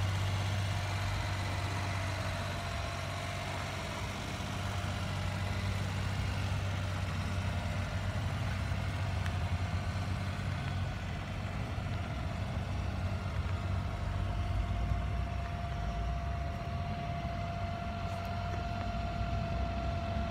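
Suzuki Carry kei truck's small three-cylinder engine idling steadily.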